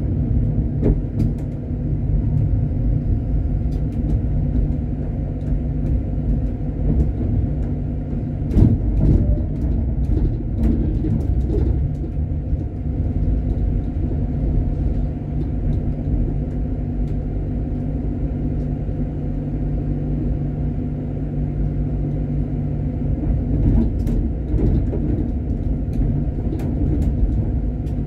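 Tram running along the track, heard from the driver's cab: a steady rumble with a low motor hum. A cluster of wheel knocks and clicks comes about eight to ten seconds in as it crosses a track junction, and more clicks follow near the end.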